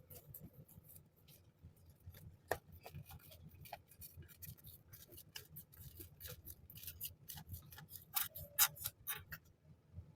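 Packaging being handled and opened for an unboxing: a run of light crackles, clicks and snips that grows denser and louder near the end, then stops.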